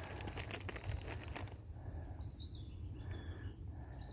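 Outdoor ambience on a grassy meadow: a low wind rumble on the microphone with rustling footsteps through wet grass for the first second and a half, then faint bird chirps.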